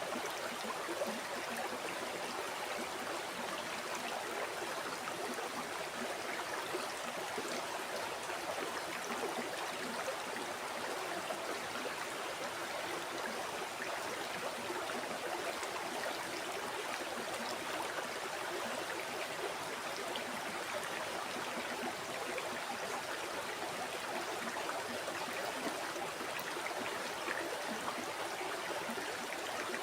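River water flowing and babbling steadily over stones, a continuous even rush with no pauses.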